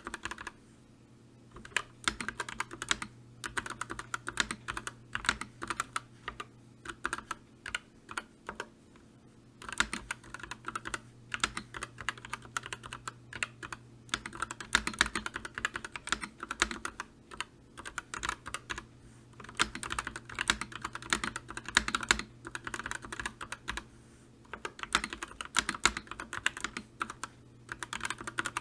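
Continuous typing on a computer keyboard: quick runs of key clicks, thinning out briefly about a second in and again around a third of the way through before picking back up.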